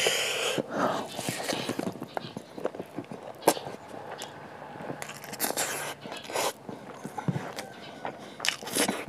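Close-miked mouth sounds of a man eating rice by hand: wet chewing and lip-smacking clicks, with a few short breathy hisses, the loudest right at the start.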